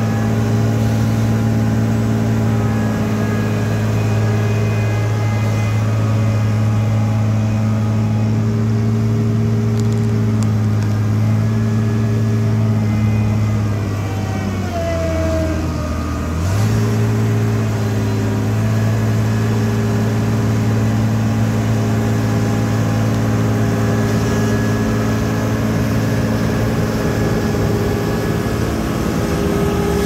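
Blaw-Knox PF-4410 crawler asphalt paver's diesel engine running steadily as the machine drives; about halfway through the engine slows to a lower pitch for around three seconds, then picks back up.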